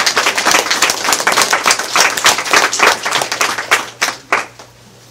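A small group of people clapping in a room, dying away with a few last claps about four and a half seconds in.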